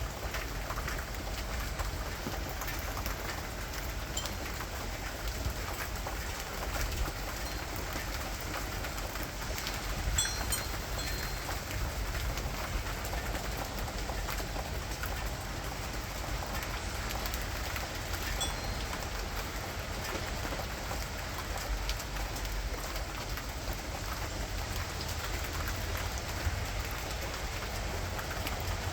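Steady rain falling: a constant hiss with many small drop clicks, and a low rumble underneath.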